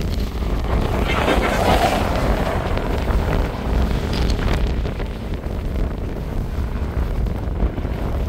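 Wind buffeting the microphone, a constant low rumble with rushing noise over it that swells loudest between about one and two seconds in.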